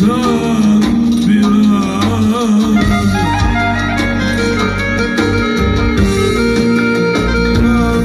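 A man sings a Turkish folk song into a microphone over electronic keyboard accompaniment, both amplified through a PA speaker. His voice wavers on held notes early on, and from about three seconds in the keyboard carries a steady melody over a continuous beat.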